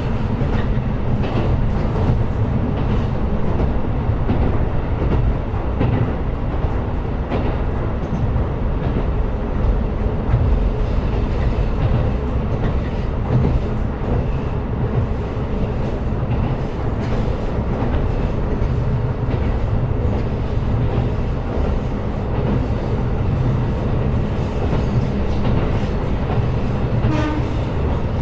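KiHa 125 diesel railcar running along the line: a steady, loud low rumble of the engine and the wheels on the rails, with a few faint clicks.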